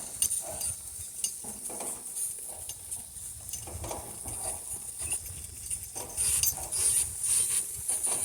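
Harnessed donkeys walking: soft irregular hoofsteps and rustling with light clinking of harness hardware, under a steady high-pitched hiss.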